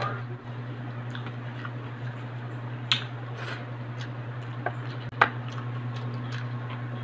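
Close-up eating sounds: chewing and soft mouth clicks while food is picked up by hand, with two sharper clicks about three and five seconds in, the second the loudest, over a steady low hum.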